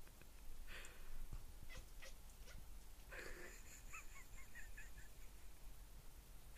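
Domestic cat making odd chirping, chattering calls at a bird it sees: a longer call about three seconds in, followed by a quick run of short chirps.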